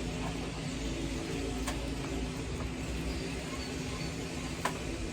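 A steady machine hum with a low rumble underneath, and two sharp clicks about three seconds apart.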